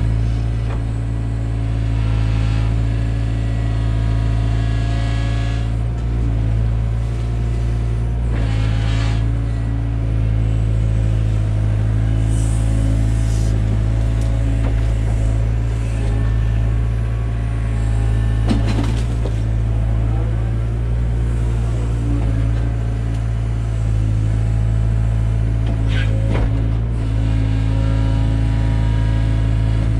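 Takeuchi TB175 compact excavator's diesel engine running steadily while it works, with a few brief knocks from the machine or bucket.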